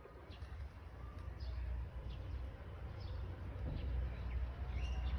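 Faint, scattered bird chirps over a low, steady background rumble.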